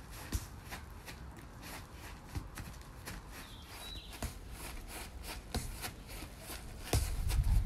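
Light taps and scuffs of a football being worked with the soles of the feet, with small hops on artificial turf: several irregular taps a second. A short high chirp sounds about halfway through, and a louder low rumble comes in near the end.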